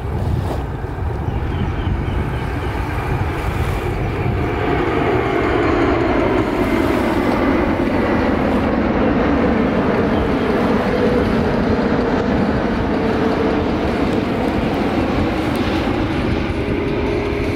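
Airbus A350-1000 airliner passing low and slow, its two Rolls-Royce Trent XWB turbofan engines making a steady jet noise. The noise swells a few seconds in and then eases slightly, with a droning tone that slides slowly in pitch as the aircraft passes.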